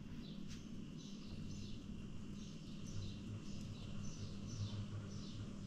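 A bird chirping over and over, short falling chirps about twice a second, over a low steady hum.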